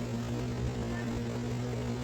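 Steady low hum with a constant pitch and a faint hiss.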